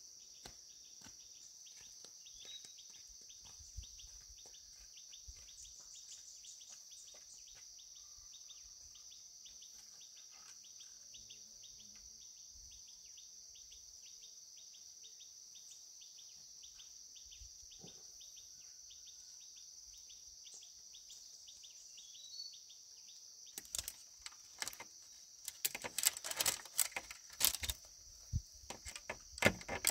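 Steady high-pitched insect drone in the background. From about 24 seconds in, a run of loud, sharp knocks and clatter.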